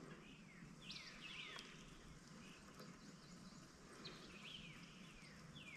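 Faint background of birds calling: short, downward-slurred chirps in small clusters about a second in, around four seconds, and near the end, over a soft steady hiss.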